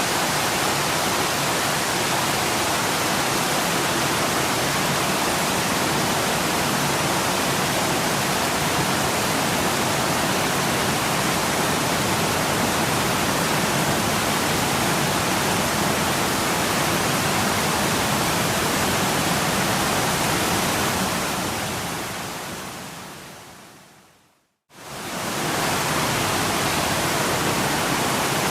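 A waterfall's water falling in a steady, even rush. About three quarters of the way through, the sound fades out to a moment of silence and then quickly returns at the same level.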